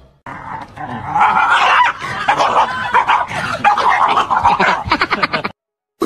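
A dog barking and yipping in a rapid, unbroken run, ending in a fast string of short yips that cuts off suddenly.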